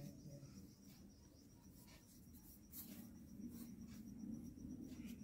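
Faint, irregular rustling and scraping of a hand rubbing dry flour with ghee and spices in a steel bowl.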